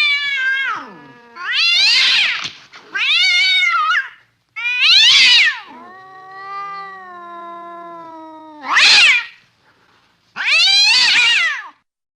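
Domestic cat meowing repeatedly: a string of about six loud, long meows, each rising then falling in pitch, with a quieter drawn-out low moan after the fourth.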